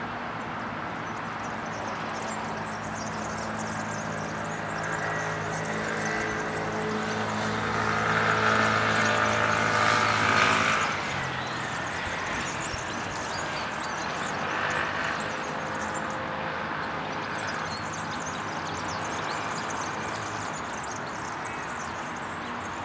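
A motor engine's steady droning hum grows louder to a peak about ten seconds in, then stops abruptly, leaving a steady hiss of background noise.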